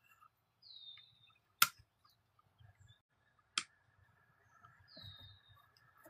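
Two short, high chirps, each falling in pitch, about four seconds apart, with two sharp clicks between them.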